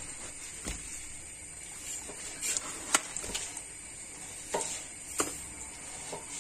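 A few scattered light clicks and knocks of kitchen things being handled, about five over several seconds, over faint room hiss.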